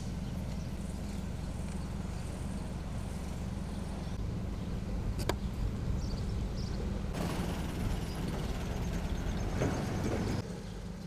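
Street traffic and engine noise: a steady low engine rumble, with a single sharp click about five seconds in and a louder stretch of passing-vehicle noise from about seven to ten seconds in that cuts off suddenly.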